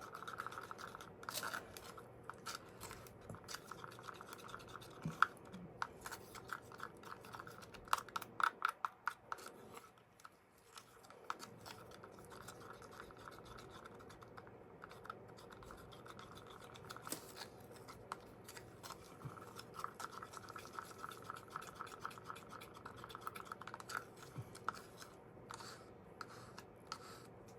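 Faint scratching and rubbing with scattered light clicks and taps, from small craft tools and cups being handled on the work surface, with a quick run of clicks about eight seconds in.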